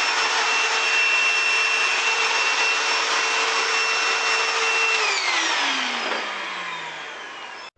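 Eureka 3670G canister vacuum cleaner running steadily with a high whine, then switched off about five seconds in: the motor's pitch falls as it spins down and the sound fades, then cuts off abruptly near the end.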